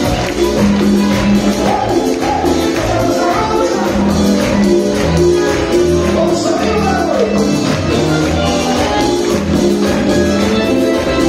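Live band playing Latin dance music with a lead singer over a steady beat, heard from the audience.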